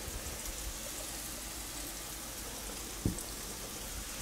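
Sliced mushrooms sizzling steadily in a frying pan as they sauté, nearly done. There is a single light knock about three seconds in.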